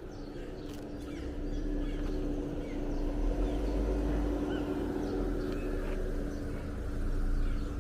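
Car running, a steady low rumble with a constant hum that grows louder about a second and a half in, with faint short chirps over it.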